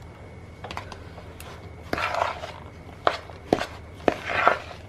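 Eggs being cracked against a mixing bowl and added to the curd mixture: several sharp taps against the bowl, with two short scraping, sloshing sounds between them.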